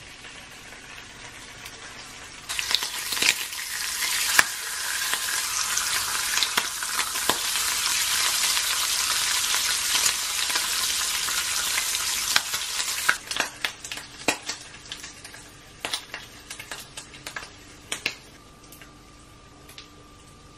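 Bacon strips sizzling in a frying pan, starting sharply about two and a half seconds in. The sizzle falls away about thirteen seconds in, leaving scattered pops and clicks.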